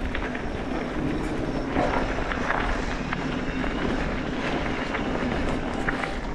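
Mountain bike rolling fast down a dirt flow trail: steady tyre and riding noise, with scattered short clicks and rattles from the bike over the ground.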